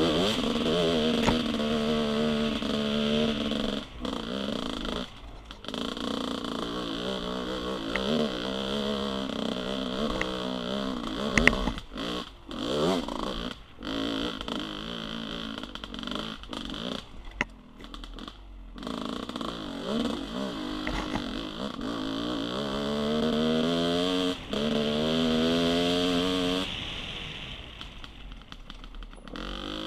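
Dirt bike engine revving up and down as the rider works the throttle over an uneven trail, the revs dropping away briefly several times when the throttle is closed.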